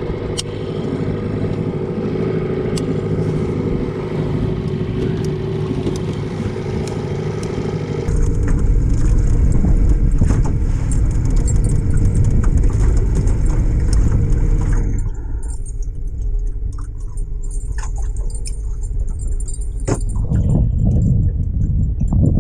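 Boat's outboard motor running steadily at trolling speed. About eight seconds in a louder low rumble takes over, and in the last several seconds it is quieter, with light clinks and jingling.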